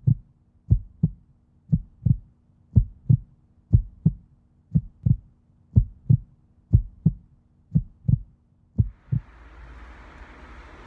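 Heartbeat sound effect: paired low lub-dub thumps, about one beat a second, that stop about nine seconds in. Steady outdoor background noise takes over after that.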